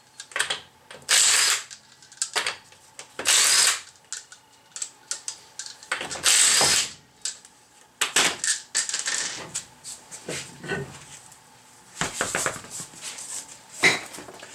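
Cordless impact wrench spinning off wheel lug nuts in three bursts of about a second each, followed by clinking and knocking as the nuts are handled and the wheel is pulled off, with one sharp knock near the end.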